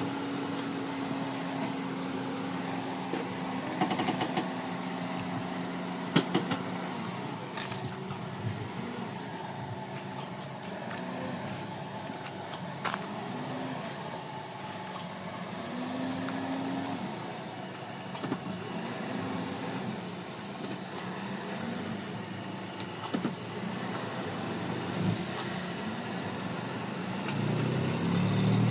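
Suzuki Celerio's three-cylinder engine idling, the engine being diagnosed for a misfire. Its pitch swells and falls back about every two to three seconds, with a few sharp clicks, and it grows louder near the end.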